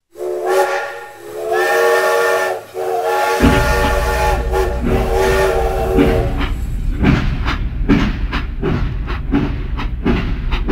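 A steam locomotive whistle sounds three times, the last blast long. A steam train then runs on over the rails with a steady rumble and a regular clickety-clack.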